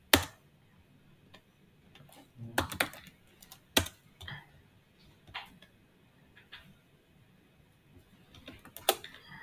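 Computer keyboard keystrokes and clicks, a few at a time with pauses between, including a quick run of keystrokes about two and a half seconds in.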